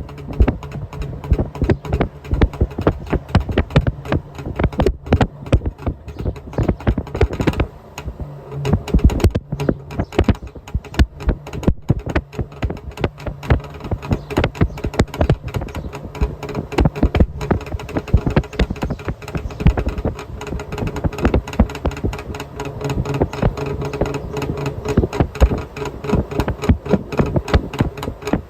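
Trabant 601's two-cylinder two-stroke engine running at the exhaust tailpipe, a fast, even stream of exhaust pulses popping against the microphone. The exhaust pressure distorts the recording.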